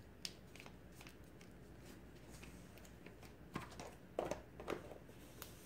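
Quiet room tone with a scattering of faint, short taps and clicks: a few near the start, then a cluster of slightly louder ones over the last two seconds.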